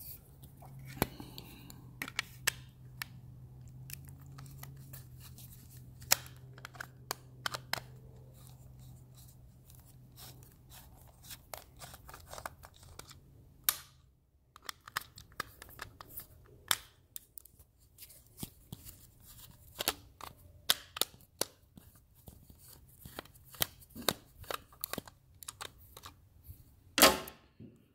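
Scattered clicks and taps of hands and a screwdriver handling the plastic housing of a garage door opener's wireless keypad receiver, with a faint low hum through the first half.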